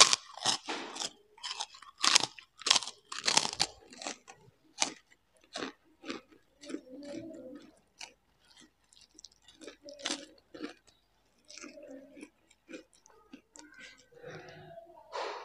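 Loud, crisp crunching bites of a kerupuk cracker close to the microphone, about a dozen in the first five seconds, then softer chewing for the rest.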